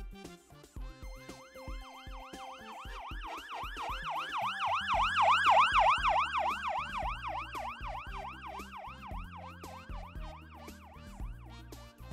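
Emergency vehicle siren in a fast yelp, rising and falling about four times a second. It swells to its loudest about halfway through, then fades, over cheerful background music.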